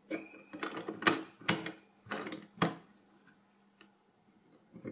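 Steel load plate and retention lever of an LGA1366 CPU socket being closed down over the processor: a quick run of sharp metal clicks and clacks over the first two and a half seconds, then one light click near the end.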